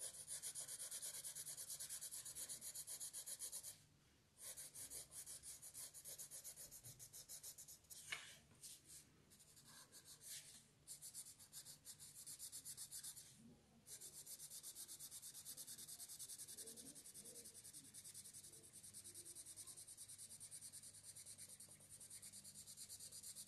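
Watercolour pencil shading on paper: faint, rapid back-and-forth hatching strokes filling in a dark area, pausing briefly a few times.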